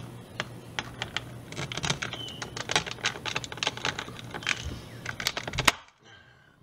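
Utility-knife blade of a TC 105 lever-action hand cutter being pressed hard down through a 25 mm wide, 1.5 mm thick wooden strip: a run of irregular crackling clicks as the wood fibres give, ending in one sharp snap as the blade breaks through, a second before the end.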